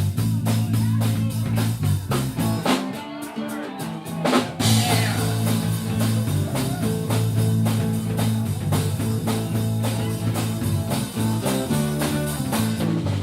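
Band playing blues-rock: electric guitar over a drum kit keeping a steady beat, with a held bass line that changes note every second or so.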